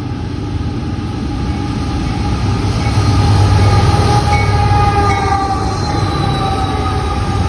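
A train rumbling past close by, getting louder toward the middle. A sounding horn cuts off just as the rumble builds, and a steady high tone rings over the rumble in the second half.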